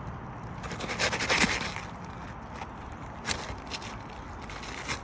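Asphalt shingle scraping as it is worked loose from the roof, with a longer scrape about a second in and a few short clicks later.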